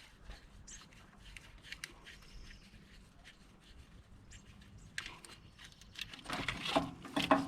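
Small clicks, taps and rattles of hand tools on fittings as the truck's air lines are being taken loose, growing louder and busier from about five seconds in.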